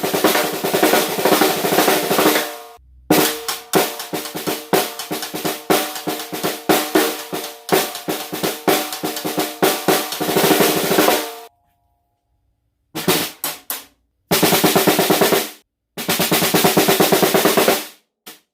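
A 14x4 copper-shell snare drum being played in fast rolls and runs of strokes, with a steady ringing tone under the hits. The playing stops several times, once for about a second and a half, and picks up again with short rolls.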